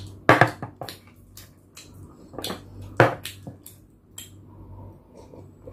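Close-up eating sounds: crunchy chewing and mouth noises mixed with light clicks and knocks of a ceramic bowl and cup on the table, about once every half second, the loudest a few times in the first three seconds.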